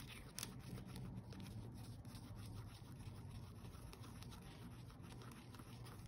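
Faint scraping and light clicking of a wooden craft stick stirring two-part resin with glitter in a small plastic cup, the stick catching on the cup's sides.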